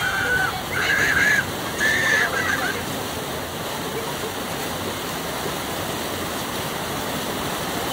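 Water rushing steadily down a small stone cascade in a river-tubing channel. A few short high-pitched calls sound over it in the first three seconds.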